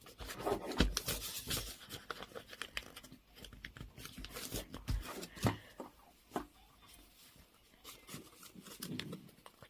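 A sheet of origami paper being handled and folded: crisp rustles, crinkles and sharp creasing clicks. They are busiest in the first couple of seconds, then come in scattered bursts.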